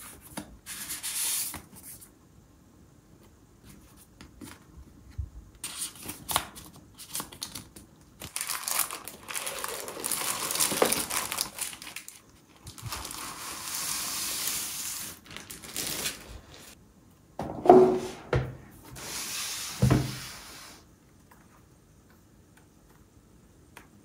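Unboxing sounds: a frosted plastic bag and paper packaging around a mechanical keyboard crinkling and rustling as they are handled and pulled open, in several stretches. Two soft thumps come near the end, the loudest moments, and then it goes quiet.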